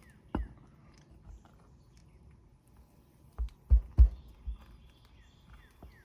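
Sharp knocks with a dull thud on the roof during a shingle repair: one shortly after the start, then a quick run of three or four about a third of a second apart in the middle. A bird chirps a few short falling notes near the end.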